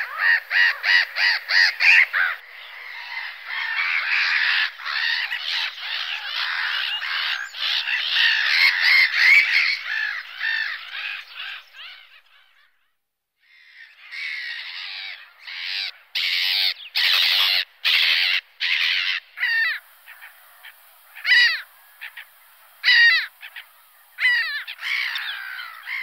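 Gulls calling: many overlapping calls for about twelve seconds, a short break, then loud separate calls. Near the end come single calls that slide in pitch, spaced a second or two apart.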